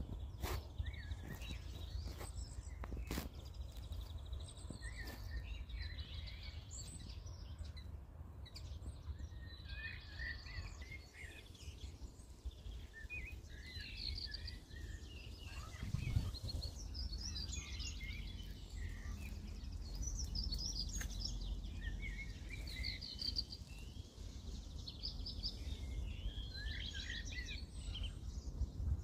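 Several songbirds singing and chirping, short calls and trills overlapping, busier in the second half. Under them runs a steady low rumble, with a few soft knocks in the first few seconds.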